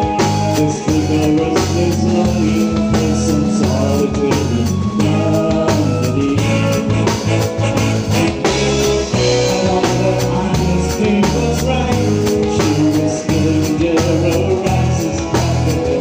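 Live rock band playing a song, heard from beside the drum kit: drums keeping a steady beat under guitar and a singing voice.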